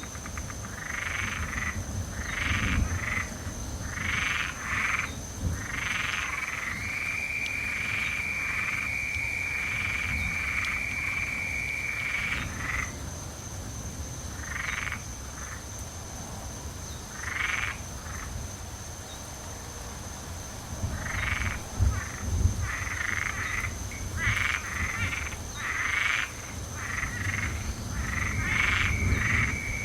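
A chorus of frogs calling in repeated short bursts, with one note held for several seconds about a third of the way in. A low rumble runs underneath and swells about two-thirds of the way through.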